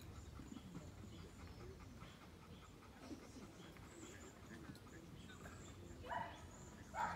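A Bernese Mountain Dog vocalizes twice, briefly, near the end, over a faint background.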